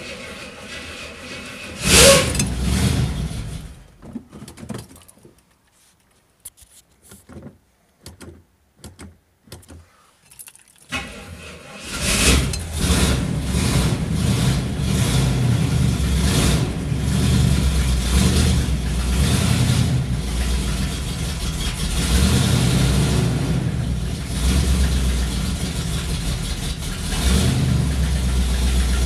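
1974 Pontiac Firebird Formula 400's 400 V8 on a cold start. It catches with a loud burst about two seconds in and dies within a couple of seconds. After a quiet spell with a few clicks it fires again about twelve seconds in and keeps running, with several blips of the throttle.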